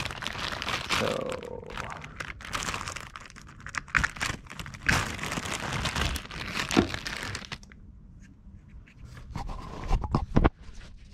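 Clear plastic zip-top bag crinkling and rustling as it is handled and opened to get a part out. The crinkling stops about seven and a half seconds in, and a few light knocks follow near the end.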